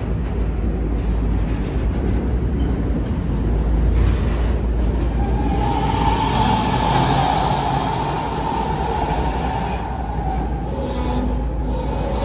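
Multi-level autorack freight cars rolling past: a steady low rumble and clatter of steel wheels on rail. A high steady squeal from the wheels comes in about five seconds in and fades out near ten seconds, returning faintly at a lower pitch near the end.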